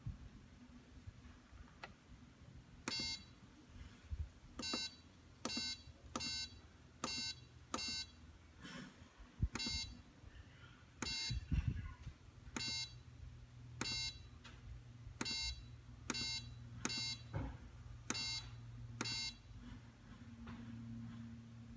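Electronic beeps from a Gorenje WA73161 washing machine's control panel: about fifteen short, same-pitched beeps at uneven spacing, as buttons are pressed or the programme knob is turned. There are a few low knocks, and a low steady hum comes in about halfway through.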